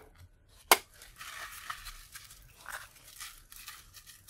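Copper wire being pulled and uncoiled out of a small broken coil from a DSL filter: a sharp click less than a second in, then uneven rustling and scraping of the thin wire.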